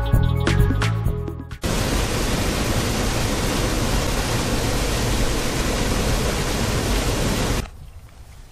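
Background music with a beat ends about a second and a half in, and the steady rush of a small waterfall splashing into a rocky pool takes over. It cuts off suddenly near the end, leaving quiet outdoor background.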